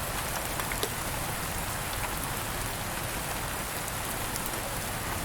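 Steady rain falling on a hard surface, a dense even patter with a few separate drops ticking through it.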